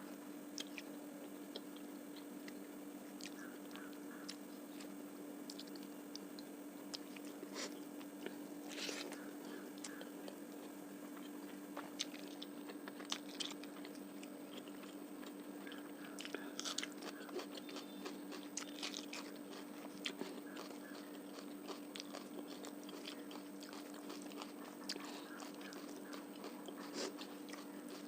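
Close-miked chewing and biting of a meal of fish curry, rice and onion, with scattered small crunches and mouth clicks. A steady low hum runs underneath.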